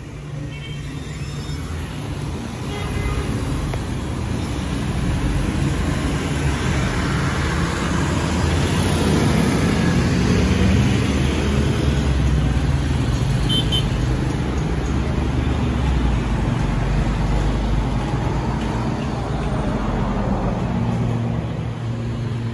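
Jet airliner flying overhead: a deep engine roar that swells to its loudest about halfway through and then slowly fades as the aircraft climbs away.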